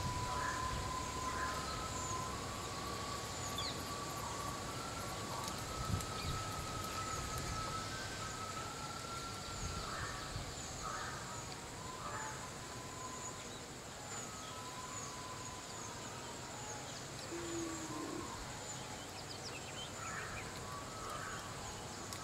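Outdoor ambience with birds chirping repeatedly over a low steady rumble. A thin, held whistle-like tone is heard during the first half.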